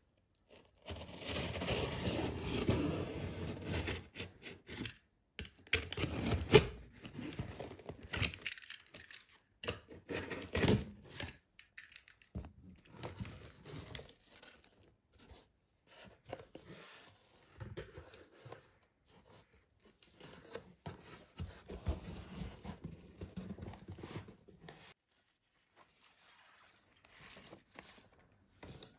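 Packing tape on a cardboard box being slit with a box cutter and torn open, loudest in the first few seconds. Then the cardboard flaps are pulled back and papers and packaging rustle.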